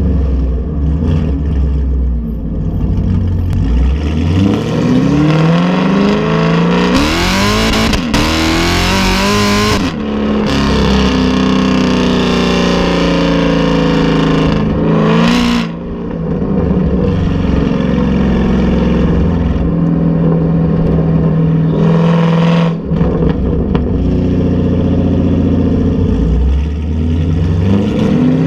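Exhaust of a 2018 Camaro SS's 6.2-litre LT1 V8 with long-tube headers and an MBRP axle-back, heard at the tailpipes while driving. About four seconds in it accelerates hard, the revs climbing through a shift and loudest for a few seconds, then it settles to a steady cruise with a brief blip in revs partway through and the revs climbing again near the end.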